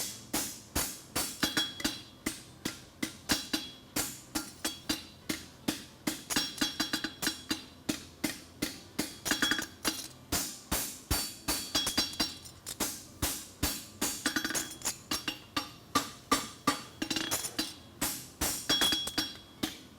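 Farrier's hand hammer striking a hot aluminum bar shoe on the anvil, bending it around the horn: a steady run of about two to three blows a second, each with a short metallic ring.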